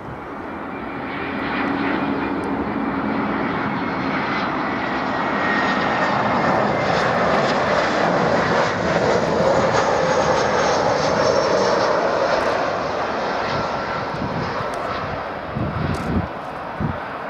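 Airbus A321 jet airliner on final approach passing low and close: engine noise builds over the first couple of seconds, is loudest around the middle with a faint whine sliding down in pitch, then eases as the jet flares low over the runway.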